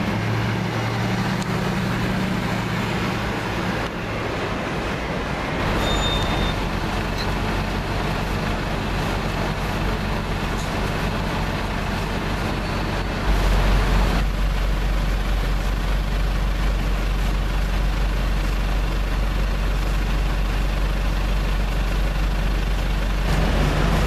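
Mercedes-Benz SLS AMG Black Series' 6.2-litre V8 running at low revs, a steady deep rumble amid street traffic, changing abruptly a few times between clips.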